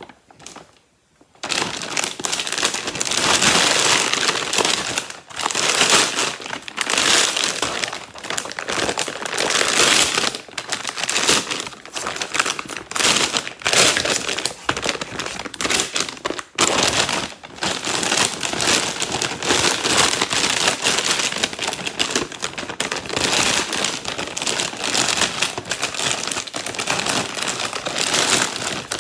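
A sewn plastic feed-sack bag crinkling and rustling loudly as it is pulled through and turned right side out by hand, in quick, irregular surges that start after a brief quiet moment.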